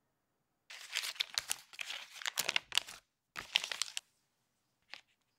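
Paper butter wrapper being unfolded and pulled open, crinkling and crackling in two stretches, followed by a single light tap near the end.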